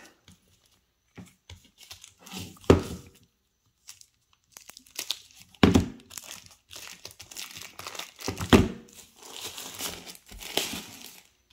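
Plastic packaging crinkling and tearing as a power bank is unwrapped by hand, with three louder handling knocks spread through it.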